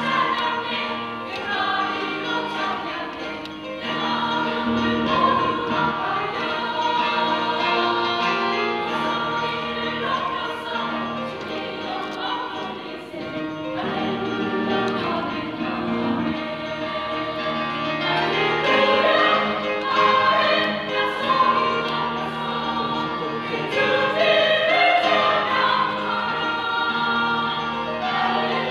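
Women's choir singing in harmony, with long held notes, growing louder in the second half.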